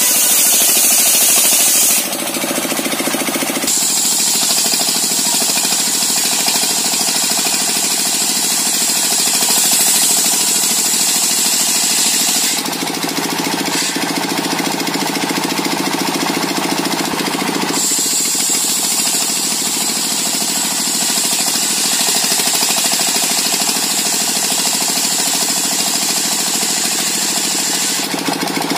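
Engine-driven circular saw machine running continuously while sawing coconut wood into beams. The steady mechanical noise changes in stretches, a high whine going and coming at about 3.5, 12.5, 17.5 and 28 seconds as the blade's load shifts.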